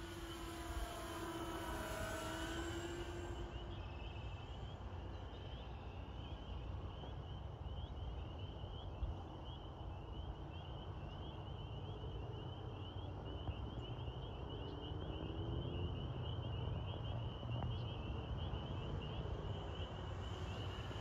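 Electric motors and propellers of a remote-control B-25 Mitchell model flying past overhead: a whine that falls in pitch as the plane passes in the first few seconds, fading, then returning faintly later and rising again near the end. A steady low rumble runs underneath, and a high, rapid chirring continues throughout.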